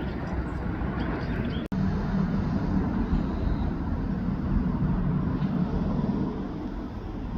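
Jet airliner noise at the airport: a steady low rumble that cuts out for an instant about a second and a half in.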